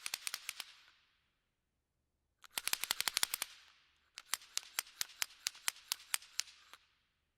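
Rapid series of sharp clicks in three bursts, several clicks a second, with short dead-silent gaps between the bursts.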